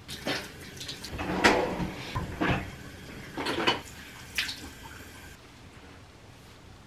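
Water running from a bathroom tap into a sink with irregular splashes, as when splashing water on the face, then the tap shut off about five seconds in.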